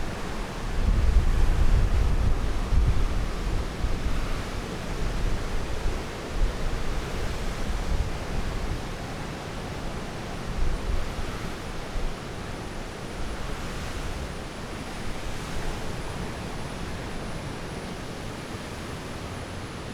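Strong wind gusting over the microphone: a heavy, buffeting low rumble over a steady rushing hiss, strongest in the first several seconds and easing after that.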